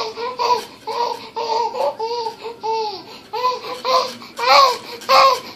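Baby laughing in a quick run of short, high-pitched bursts, about two a second, the loudest near the end.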